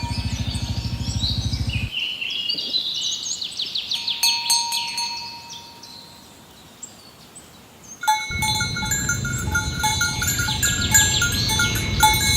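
Outdoor village ambience: birds chirping over and over, with steady bell-like ringing, typical of bells on herded cattle. A low pulsing rumble drops away about two seconds in and comes back about eight seconds in.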